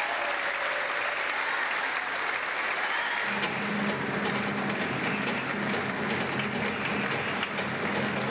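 Audience applauding in a sports hall. A steady low hum comes in about three seconds in.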